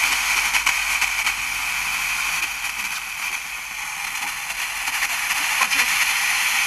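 Radio static from a portable multiband radio's speaker as its tuning wheel is turned slowly by hand between stations: a steady hiss with a few faint crackles.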